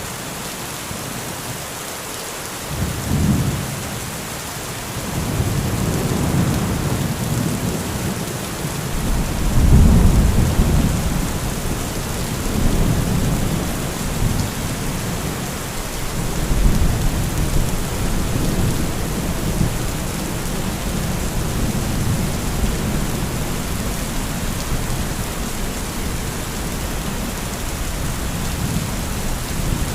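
Heavy rain falling steadily, with rolling thunder: a short clap about three seconds in, then a long rumble that builds to its loudest peak about ten seconds in, another swell about seventeen seconds in, and easing back to steady rain.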